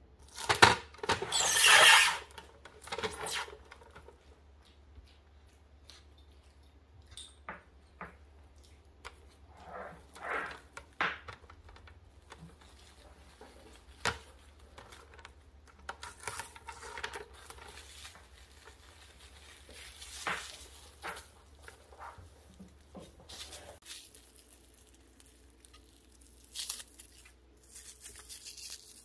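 Plastic cling film rustling and crinkling in short, uneven bursts as it is wrapped around a rolled bread sandwich and its ends twisted shut, with a few sharp clicks; the loudest rustle comes about a second in.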